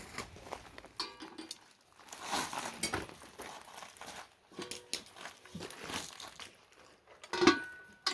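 Metal cookware and utensils being handled: scattered clinks and knocks, some ringing briefly, with the loudest clank near the end.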